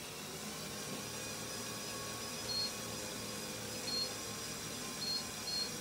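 Steady whirring hum of a running treadmill belt and the Lego Technic Powered Up motors driving small rubber-tyred vehicles, building in loudness over the first second. Four short high electronic beeps cut in from about halfway through, the last two close together.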